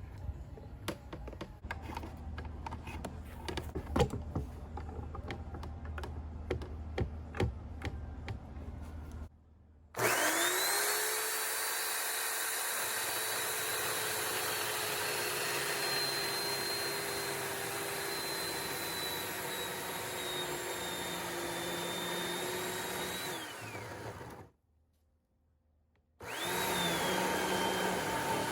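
Scattered knocks and clicks over a low hum. Then an electric chainsaw's motor starts about a third of the way in and runs with a high whine that sags gradually, winds down and stops. After a short silence it starts up again.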